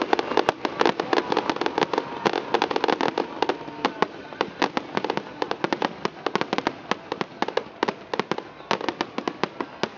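Fireworks finale: a rapid, unbroken barrage of aerial shell bursts, many sharp bangs and cracks a second overlapping one another.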